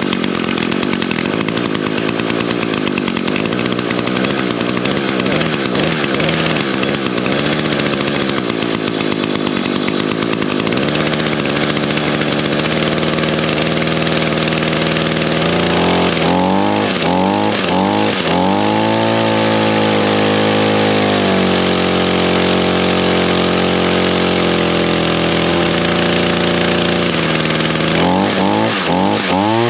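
Echo gas string trimmer's small two-stroke engine running: uneven at low speed at first, then throttled up about a third of the way in. It gives several quick revs, holds at high speed, and blips the throttle again near the end.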